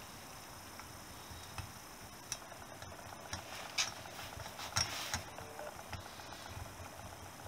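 Light metal clicks and taps of a rocker shaft and rocker arms being worked by hand into a Honda CB125S's aluminium cylinder head, with a few sharper clicks in the middle.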